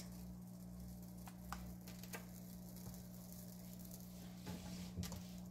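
Quiet room tone with a steady low hum, broken by a few faint light clicks between one and two seconds in and a soft handling noise about four and a half seconds in.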